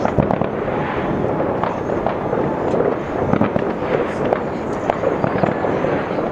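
A fireworks display going off in rapid succession: a dense, unbroken run of bangs and crackles.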